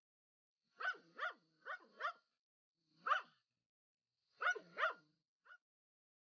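Dog barking in short bursts: four quick barks about a second in, a single bark, then a pair, and a faint last bark near the end.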